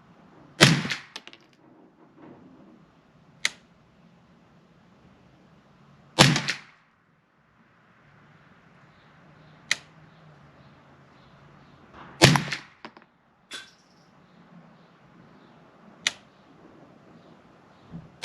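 Ruger 10/22 semi-automatic .22 LR rifle fired slowly, three sharp shots about six seconds apart, with smaller clicks in between.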